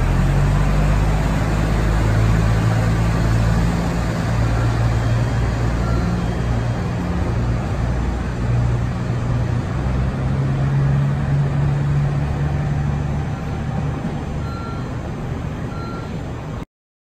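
KiHa 85 diesel railcar's Cummins diesel engines working under load as the train accelerates away from the platform, a deep steady engine drone that slowly fades as it recedes.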